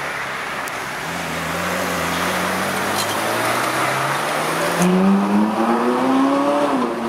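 Ferrari 458's V8 engine running under a steady road and wind rush, then accelerating hard about five seconds in, its note climbing for about two seconds before easing off.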